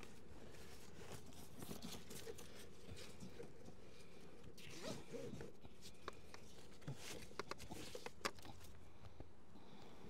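Nylon tie-down strap being fastened around a plastic beehive: the webbing rasps as it is drawn over the lid and pulled through the buckle, then a few sharp clicks from the buckle as it is tightened, the loudest near the end.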